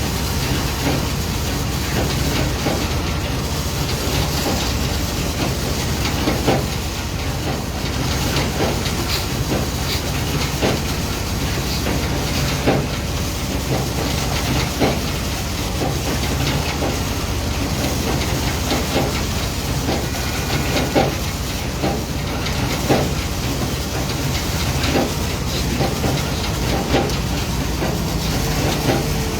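Heavy construction machinery running steadily, with irregular metallic knocks and clanks every second or two over the drone.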